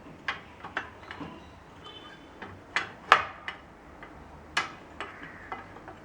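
Irregular sharp clicks and taps of bolts being handled and fitted to join the stand's lower and upper connecting rods, the loudest about three seconds in.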